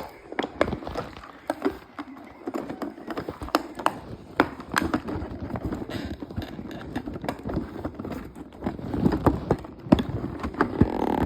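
Hands handling toy packaging: irregular clicks, taps and crinkling of plastic and cardboard as a figure is worked out of its box.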